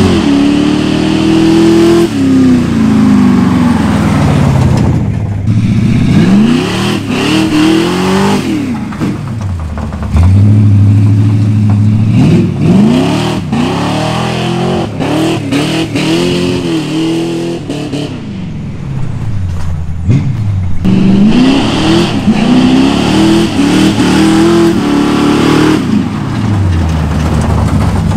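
Lifted vintage Ford pickup's engine revving up and dropping back again and again as the truck is driven hard, with a couple of seconds held steady at high revs near the middle.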